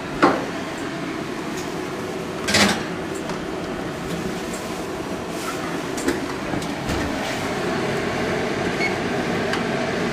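Metal baking pan being slid onto an oven rack, with a clank just after the start and a louder knock about two and a half seconds in, over a steady background rumble. Near the end, faint short beeps as the oven's touch-control buttons are pressed.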